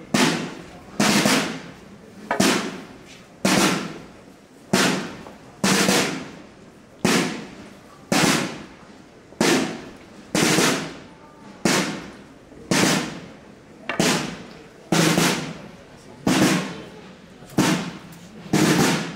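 Procession drum beating a slow, steady single stroke, a little more than one beat per second, each hit sharp and ringing out before the next: the funeral cadence that sets the slow walking pace of a Holy Week burial procession.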